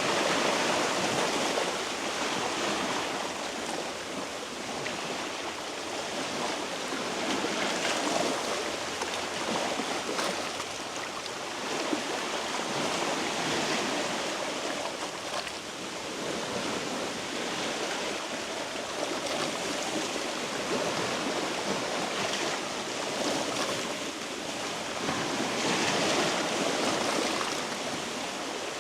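Sea waves washing against shoreline rocks: a steady rush of surf that swells and eases every few seconds.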